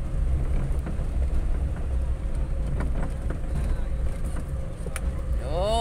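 Inside the cabin of a Daihatsu Zebra van: a steady low engine and road rumble as it crawls over a broken, stony road, with a few light knocks and rattles.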